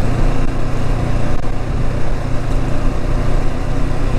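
Motorcycle engine running steadily at a low cruising speed, with wind and road noise from the ride.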